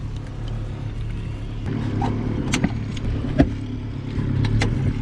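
Boat engine idling with a steady low hum, with a few sharp knocks in the second half.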